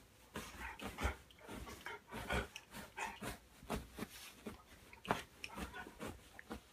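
A dog burrowing its nose into a duvet: rustling bedding and sniffing in short, irregular bursts.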